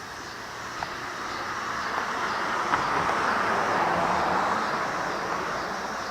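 A vehicle passing by: a rushing noise swells to a peak about four seconds in and then fades away, with faint sharp ticks about once a second.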